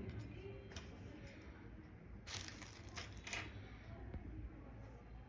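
A few faint, sharp clicks over a low steady background: one early, a quick cluster about halfway through, then two more shortly after.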